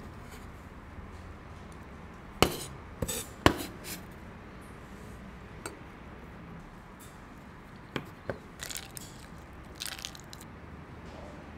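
Sharp clinks and taps of tableware: a ceramic plate and small glass bowl knocking on a wooden cutting board, three loud ones in quick succession about two and a half seconds in, then a few lighter taps. Near the end a hand stirs shredded scallion in a bowl of ice water, giving short splashy swishes.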